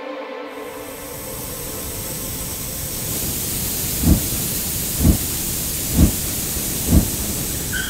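Rocket-thrust sound effect for a flying cartoon robot: a rushing hiss that starts about half a second in and builds up, with four low thumps about a second apart in the second half.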